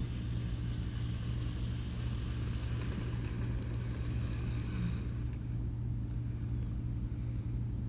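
Bachmann Gordon model locomotive running along the track: a steady electric motor hum with faint wheel noise on the rails.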